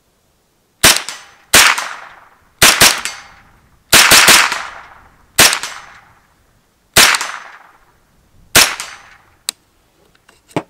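CZ Scorpion EVO 3 S1 carbine in .22 LR firing a string of about ten semi-automatic shots at uneven spacing, some in quick doubles and triples. Each is a sharp crack with a short fading tail. A small click follows near the end.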